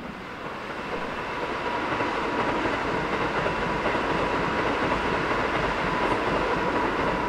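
Loud, steady roar of a large vehicle that swells over about the first two seconds and then holds, with a faint high whine running through it.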